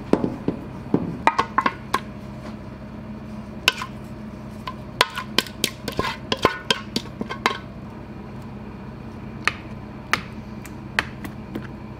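Wooden spatula knocking and scraping thick soy milk and starch tofu batter out of a metal pot into a stainless steel mold: a scattered run of clicks and clunks, busiest in the middle, over a steady low hum.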